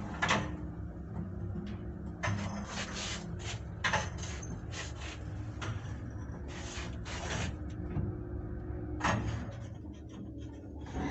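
1982 MLZ passenger lift travelling in its shaft: a steady low running hum broken by many short, irregular squeaks and creaks of the cab's guides rubbing on the guide rails.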